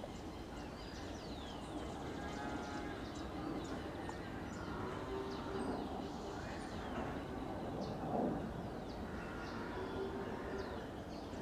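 Wetland birds calling: many short, high, falling chirps, with a few longer nasal calls over faint steady background noise.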